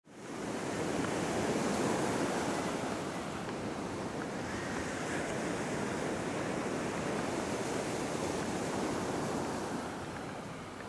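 Ocean waves breaking and washing up a sandy beach: a steady rush of surf.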